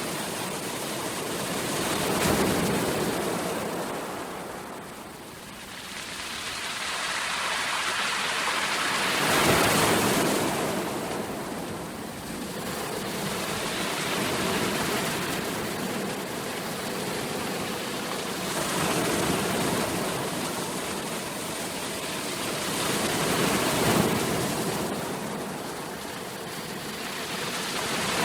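Ocean surf: waves breaking and washing up the shore, the rush of water swelling and falling away in slow surges, about four in all.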